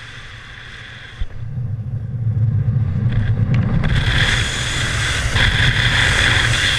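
Wind rushing over the microphone of a camera in paraglider flight, a loud rumble that builds about a second in, with a steady high whistle that fades about a second in and returns about four seconds in.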